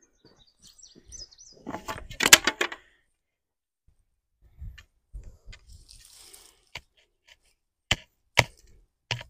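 Wooden tomato stakes knocking and clattering as they are handled. There is a cluster of sharp knocks about two seconds in, then a few single knocks near the end.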